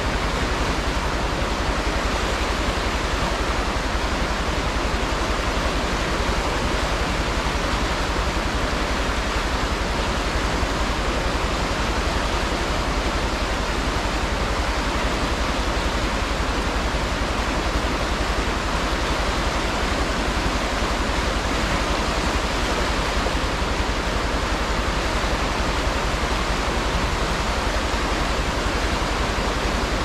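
A river in flood, swollen and muddy, rushing over rapids: a steady, unbroken rush of white water.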